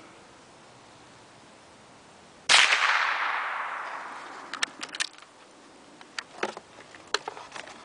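A single shot from a Davey Crickett .22 single-shot bolt-action rifle about two and a half seconds in, its report echoing and fading over about a second and a half. A few sharp metallic clicks follow as the bolt is worked by hand.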